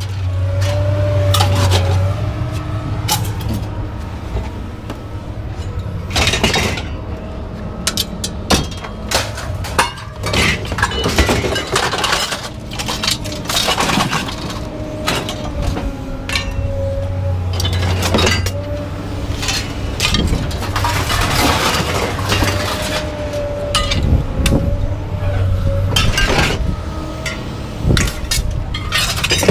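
Pieces of scrap metal being thrown and dropped onto a pile, a constant run of clanks and clatters, with a steady low hum and a wavering tone underneath.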